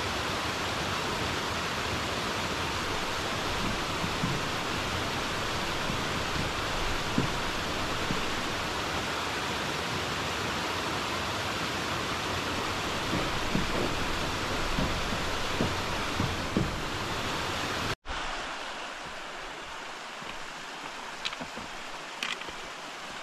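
Small mountain stream cascading over rocks close by, a steady rushing hiss. About 18 seconds in it cuts off abruptly to a quieter, steady hiss with a few faint ticks.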